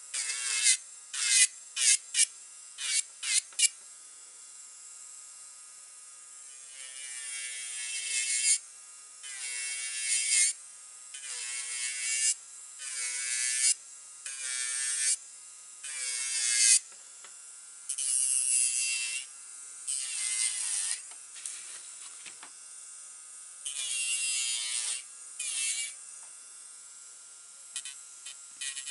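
Electric nail drill (e-file) running with a steady whine while its bit grinds against the nail in repeated passes. The passes are quick and short in the first few seconds, then last about a second each, with the plain motor whine between them.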